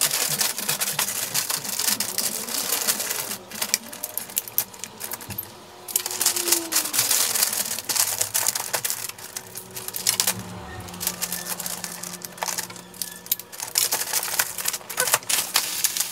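Wrapping paper crinkling and rustling in dense, irregular crackles as it is folded and pressed around a gift box, with a few short pauses.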